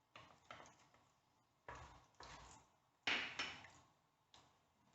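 Mustard seeds popping and spluttering in hot oil in a clay pot, in short irregular crackles, the loudest about three seconds in.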